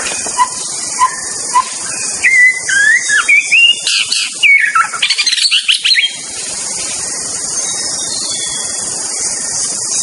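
White-rumped shama (murai batu) singing: three short soft notes about half a second apart, then a loud burst of rich whistled phrases with rising and falling slurs and quick high trills, which stops abruptly about six seconds in. A steady hiss runs underneath.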